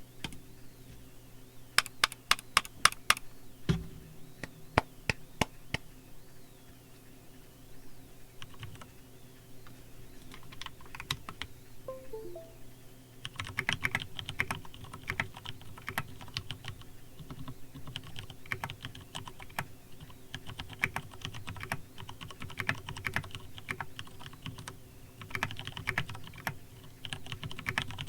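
Custom mechanical keyboard with Ergo Clear tactile switches lubed with Krytox 205 being typed on. A quick run of sharp key presses comes about two seconds in, with one heavier knock just after. Scattered single presses follow, then fast continuous typing from about halfway through.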